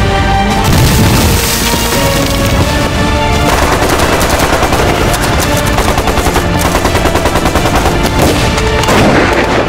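Rapid automatic gunfire, fast and continuous from about three and a half seconds in, over dramatic soundtrack music.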